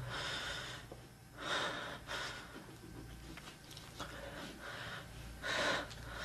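A man breathing heavily: several separate sharp breaths and gasps, the strongest near the end.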